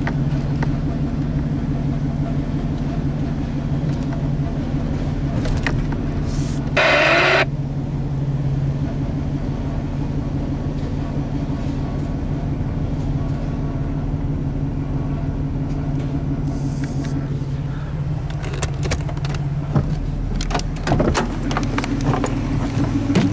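Off-road vehicle engine idling steadily. A brief loud rushing noise comes about seven seconds in, and a few knocks and clicks come near the end.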